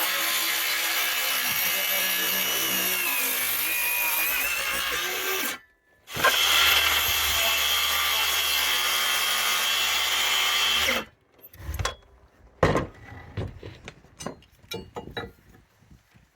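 An electric power tool cutting into wood in two runs of about five seconds each, separated by a brief stop. Several knocks and clatters follow.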